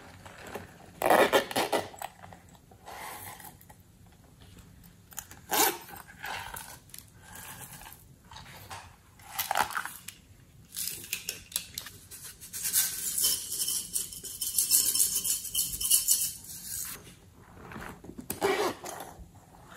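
Hands handling small plastic toy cases, with separate clicks and knocks as lids snap and parts are moved. From about 12 to 17 seconds in there is a stretch of dense rustling from loose plastic sequins stirring in an opened case.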